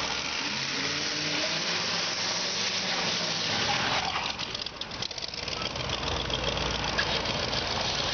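Ford rat rod pickup's engine running hard through a burnout, with the noise of the spinning rear tyre, which is worn through to its steel belts and slipping. The level drops briefly about halfway through, then the engine picks up again.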